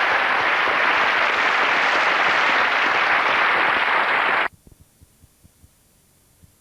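Studio audience applauding, cutting off abruptly about four and a half seconds in at a break in the VHS recording, leaving near silence.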